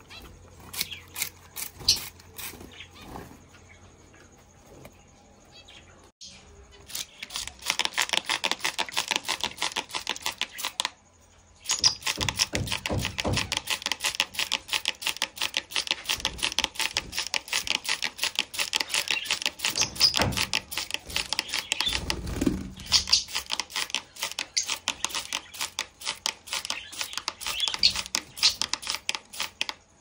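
Plastic trigger spray bottle squeezed over and over, misting water onto caged birds: a fast run of short spray hisses that starts about seven seconds in and breaks off briefly near eleven seconds.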